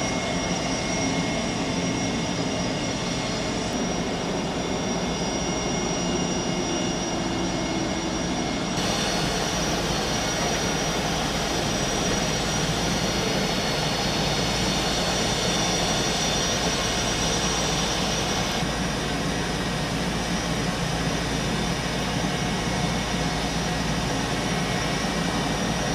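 MH-60S Seahawk helicopter's turbine engines running steadily: a loud, constant noise with a high turbine whine. The whine grows stronger for about ten seconds in the middle.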